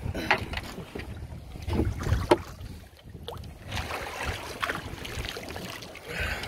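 Wind buffeting the microphone on a fishing boat at sea, over a noisy wash of water, with irregular low bumps and a few sharp knocks.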